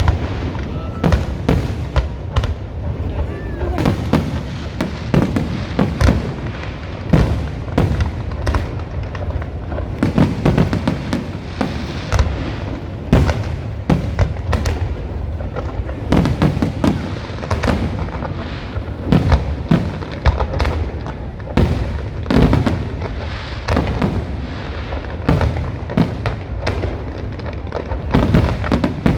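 Fireworks display: aerial shells bursting in a continuous barrage of bangs, about one or two a second, over a steady low rumble.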